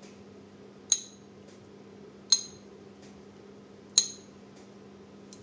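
A metal spoon clinking against a dish three times, about a second and a half apart, each strike ringing briefly, as barbecue sauce is spooned out onto the ribs.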